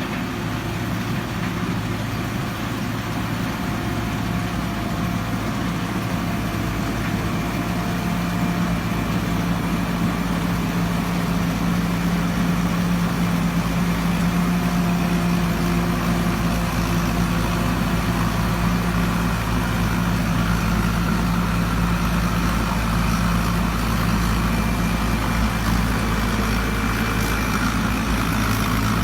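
Combine harvester's engine and working machinery running steadily as one continuous drone. It grows slightly louder about twelve seconds in.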